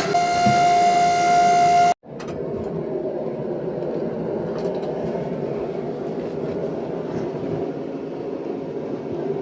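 Music with a held note for about two seconds, then a sudden cut to the steady, even roar of a forge running.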